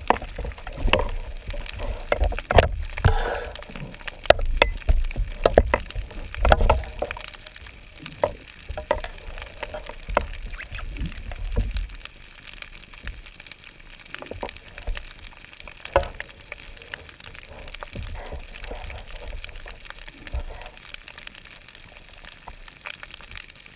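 Underwater handling noise: sharp clicks and knocks with low rumbling water movement as a speared fish is handled close to a speargun-mounted camera, busiest in the first twelve seconds, then settling to a quieter watery hiss with an odd click.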